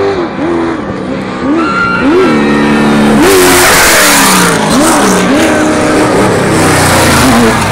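V8 off-road race vehicles at full throttle; the engine pitch climbs and drops again and again as they shift through the gears. About three seconds in, one passes close with a loud rush of tyres and flung dirt, and engine noise from a following vehicle carries on behind it.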